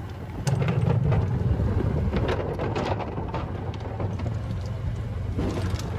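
Golf cart driving along the cart path: a steady low rumble with frequent small rattles and knocks from the cart body, getting louder about half a second in.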